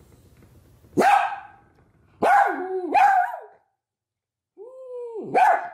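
Dog barking in protest at being left behind: one sharp bark about a second in, two more a little after two seconds, each dropping in pitch, then a longer drawn-out cry that breaks into another bark near the end.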